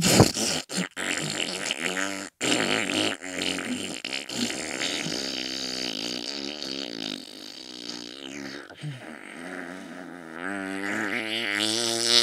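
A long, drawn-out fart noise with a wavering pitch. It breaks off briefly a couple of times in the first few seconds, swells again near the end, and then cuts off suddenly.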